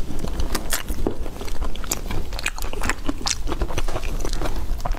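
Durian husk being pried apart by hand: the thick, fibrous rind crackles and creaks as it splits along its seams, with dense irregular snaps and scraping of the spiny shell.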